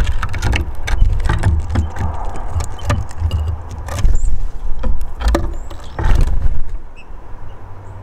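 Loud, irregular low buffeting in bursts with sharp clicks as bullfinches and a hawfinch flutter on and off a wooden bird table close to the microphone. It is strongest at the start and about four and six seconds in, and dies down near the end. A couple of faint high chirps.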